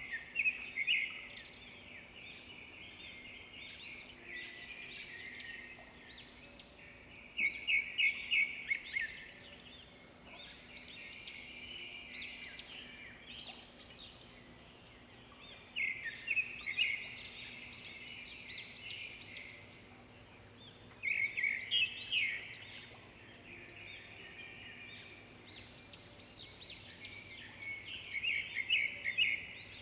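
Birds singing and chirping without a break, with a loud phrase of rapid repeated notes about every six or seven seconds.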